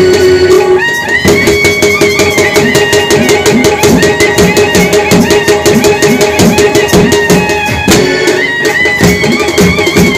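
Indian street brass band playing: a large bass drum and stick-beaten drums in a fast, steady beat with clashing hand cymbals, under a held drone note and a bending wind-instrument melody that pauses briefly about a second in and near the end.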